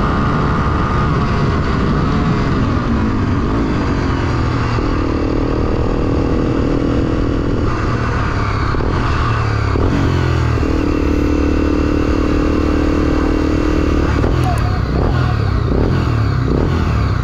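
Honda XR250 Tornado's single-cylinder four-stroke engine heard from onboard, with wind rushing over the microphone. The revs fall as the bike slows, hold steady twice, then drop to a low pulsing beat near the end as it rolls along at walking pace.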